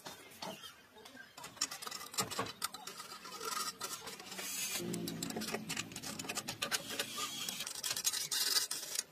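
Hand scraping at the rusty metal housing of an old powder-grinding machine: a string of quick scratches and small knocks from a metal tool against the casing.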